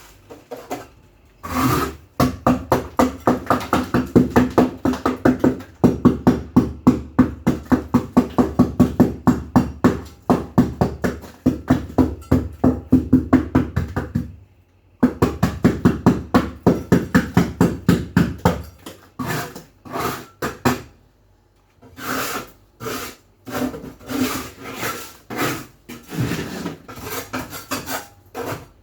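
Rapid rhythmic scrubbing strokes against a hard surface, about three to four a second. They break off briefly about halfway through, then go on in shorter, sparser runs near the end.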